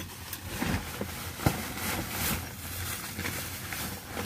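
Light handling sounds: a few soft taps and scrapes as a metal souvenir spoon is lifted out of its cardboard box, the clearest about one and a half seconds in, over a low steady hum.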